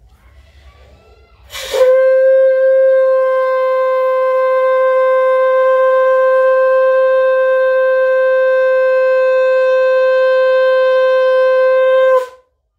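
Conch shell (shankh) blown as one long, steady note. It starts with a rush of breath about two seconds in, is held for about ten seconds, then cuts off.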